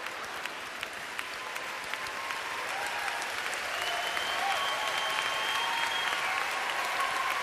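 Large theatre audience applauding, the dense clapping growing a little louder as it goes on.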